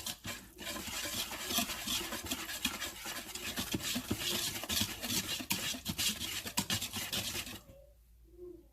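Chocolate cake batter being stirred briskly in a bowl, the utensil scraping and clicking against the bowl's sides, stopping about a second before the end.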